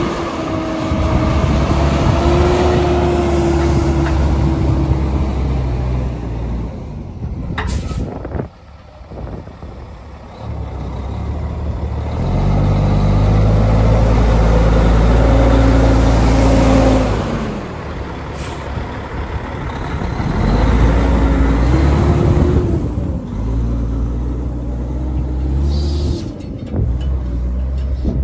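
Caterpillar C15 diesel engine of a Peterbilt 357 truck driving at low speed, its pitch rising and falling as it pulls away and eases off, loudest as the truck passes close. Two short sharp hisses cut in, about a third of the way in and again past the middle.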